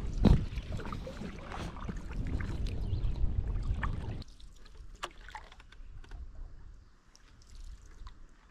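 Canoe being paddled: paddles dipping and splashing in the water, with wind rumbling on the microphone. About four seconds in the sound drops suddenly to quiet water with a few small ticks and drips.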